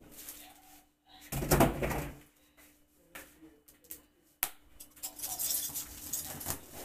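A big kitchen knife slitting the packing tape along the seam of a large cardboard box, a scratchy hiss of cutting tape in the last couple of seconds. About a second in there is a loud, short scraping rustle, and about halfway through a single sharp click.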